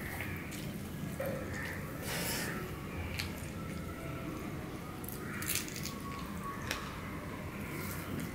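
Cooked rice being mixed and squeezed by hand on a steel plate: soft wet squishing, with a few short sharp clicks and smacks scattered through it.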